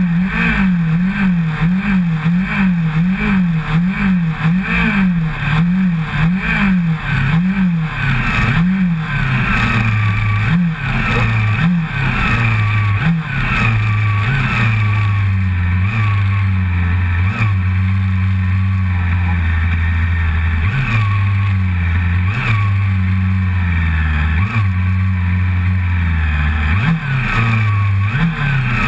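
Honda CBR400RR's inline-four engine heard from on board, revved up and down in quick regular blips, a little under two a second, for the first several seconds. It then settles to a steady low idle, with a single blip of the throttle every few seconds.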